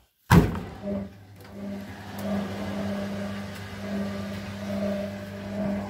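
Door of a Hotpoint WM22 washing machine shut with a loud clunk, then the machine's motor humming steadily as a short spin starts.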